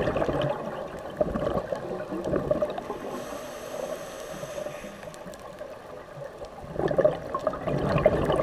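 Scuba regulator exhaust bubbles gurgling as a diver breathes out: a burst of bubbling, a quieter pause for the inhale about three seconds in, then another burst of bubbles near the end.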